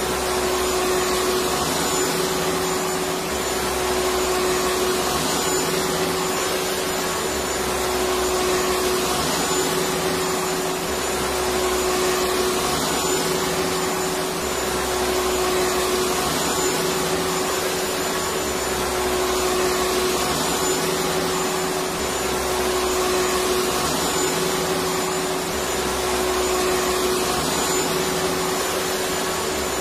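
Electric vacuum cleaner running steadily: an even rushing whoosh with a steady motor hum, and a faint low throb that comes back about every three and a half seconds.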